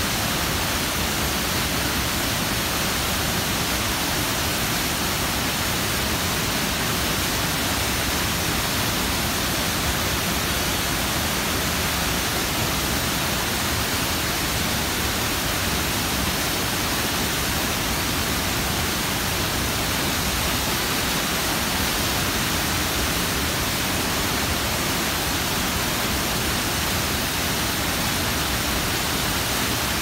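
Partly frozen waterfall pouring into an open pool: a steady, even rush of water that does not change.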